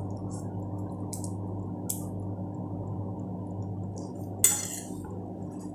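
Eating sounds: a fork working through noodles on a plate, with a few soft clicks and one sharper, louder click about four and a half seconds in, over a steady low hum.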